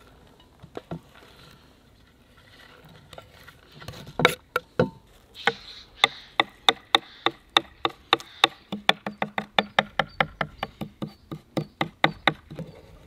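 Kitchen knife chopping fresh parsley on a wooden cutting board: a few scattered knocks, then from about four seconds in a rapid, steady run of sharp knocks, about three to four a second.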